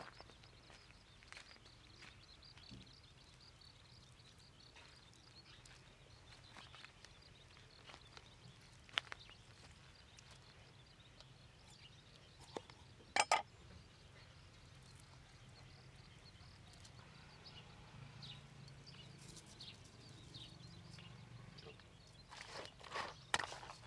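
Quiet outdoor background with scattered faint clicks, and one sharp double knock about halfway through: a cleaver chopping on a wooden cutting board. Near the end comes a run of quick taps and clicks as a metal spoon works seasoning in a steel bowl.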